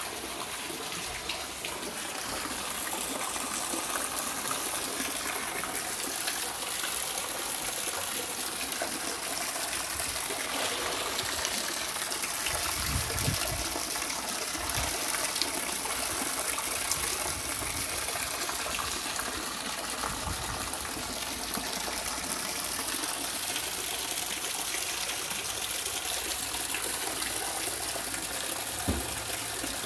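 Rainwater pouring and gushing steadily as it is collected, with a few faint low knocks.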